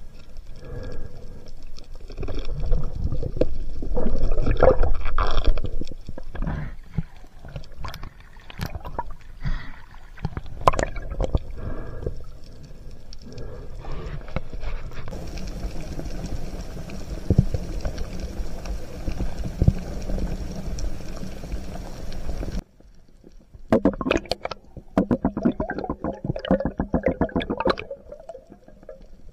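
Water sloshing and gurgling around a speargun-mounted camera as a spearfisher swims and dives, with scattered knocks and clicks. The sound cuts off suddenly about two-thirds of the way through. Near the end comes a fast run of clicks.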